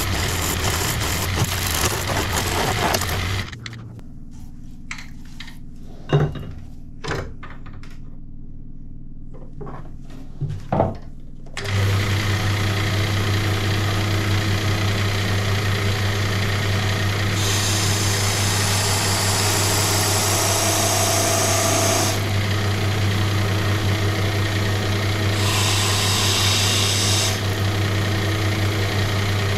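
Benchtop wood lathe running with a steady motor hum while a skew chisel cuts the spinning wood, the cuts heard as two spells of bright hissing scrape in the second half. A few seconds in, the lathe sound drops away for about eight seconds, leaving a few sharp knocks, before the hum returns.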